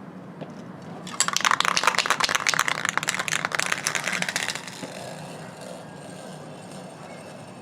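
Aerosol spray-paint can spraying in one burst of about three and a half seconds, a loud hiss with a slight flutter, starting about a second in and cutting off.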